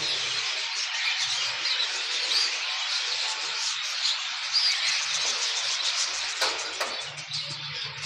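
Many Holland show budgerigars chattering and chirping together, a continuous overlapping twitter, with a couple of sharp clicks a little past six seconds in.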